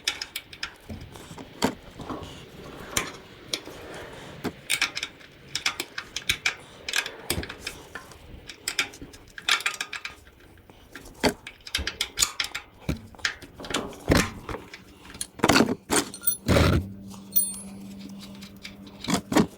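Irregular metallic clicks and clanks of hand tools working at the Briggs and Stratton engine's oil drain plug, with a heavier thump about sixteen seconds in. A steady low hum starts shortly after.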